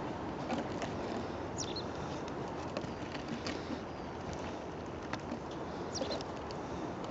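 Steady outdoor background rush with scattered light clicks, and a small bird's short falling chirps about a second and a half in and again near six seconds.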